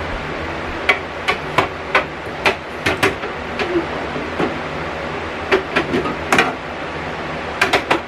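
Bottles and containers being set into a refrigerator's plastic door bins and shelves: sharp knocks and clatters in three quick runs, over a steady hum.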